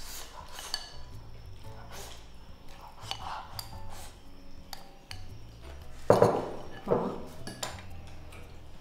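Chopsticks and spoons clicking and clinking against porcelain rice bowls as people eat, with two louder clatters about six and seven seconds in.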